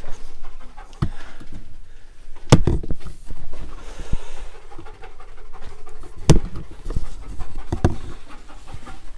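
Dog panting close to the microphone, with a few loud knocks and scrapes, the loudest about two and a half and six and a half seconds in.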